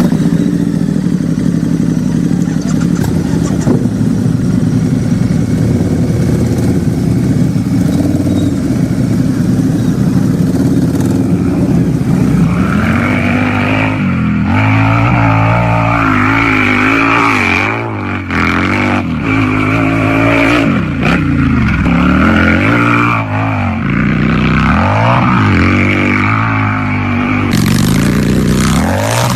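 Harley-Davidson motorcycle V-twin engine running at a steady idle with a loud, low rumble, then, about halfway through, revved up and down over and over.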